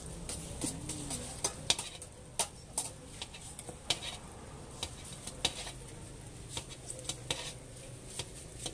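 A metal spatula chopping and scraping on a flat steel griddle, giving sharp, irregular clacks about once a second over a light sizzle.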